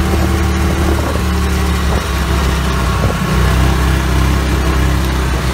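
Motor vehicle engine running steadily, a loud low hum.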